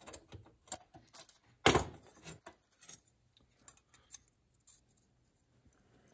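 Clinks and clicks of steel as a screwdriver works the pan off a rusty #2 Victor square jaw trap, with the loudest clank about two seconds in. After that, a few faint ticks as the rusty steel pans are handled.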